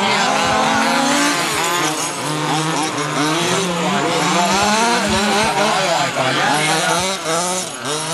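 Several small nitro engines of 1/8-scale RC off-road buggies screaming at high revs, the pitches of the different cars overlapping and rising and falling as they throttle through corners and over jumps.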